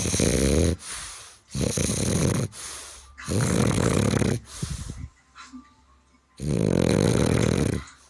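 French Bulldog snoring: four loud, rasping snores of about a second each, with a longer pause before the last one.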